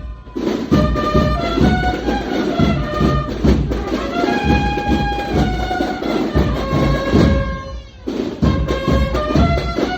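Cornet-and-drum band (banda de cornetas y tambores) playing a Holy Week march: cornets hold melody notes over a steady drum beat, with brief breaks just after the start and about eight seconds in.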